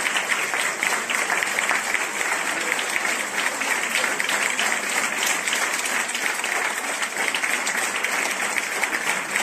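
Audience applauding, a dense steady clapping that holds at one level throughout.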